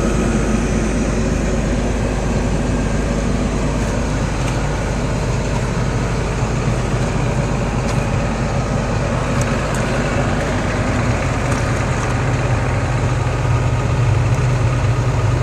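John Deere 330LC excavator's diesel engine running steadily, its low hum getting stronger over the last few seconds.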